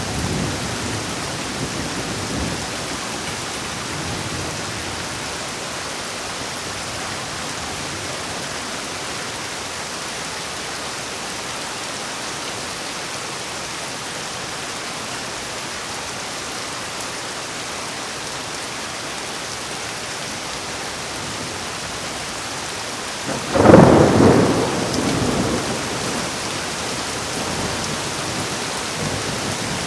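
Steady heavy rain falling, with a loud thunderclap about three-quarters of the way through that cracks suddenly and rumbles away over a couple of seconds.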